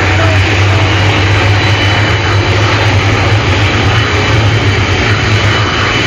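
Jet engines of several small jet aircraft running on the runway, a loud, steady noise with a low hum underneath.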